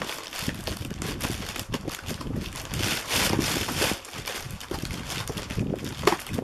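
A cardboard box of firelighters being torn open by hand, with rustling and crinkling of cardboard and packaging and a sharp snap near the end.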